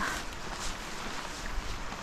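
Soft rustling and footfalls in trailside grass, with a low wind rumble on the microphone.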